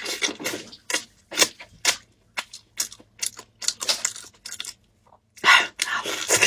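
Close-up eating sounds of a whole chicken being eaten by hand: irregular wet crackles and clicks of chewing and of the meat being torn apart, with a denser run of crackling about five and a half seconds in.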